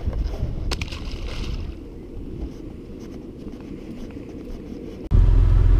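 Low water-and-rustle noise on a kayak with a few short clicks. About five seconds in, a sudden cut brings in the loud, steady low rumble of a car driving.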